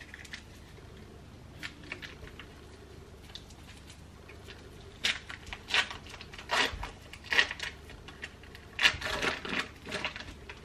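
Foil wrapper of a block of cream cheese crinkling as it is peeled open: a few faint crackles, then a quick string of crisp rustles through the second half.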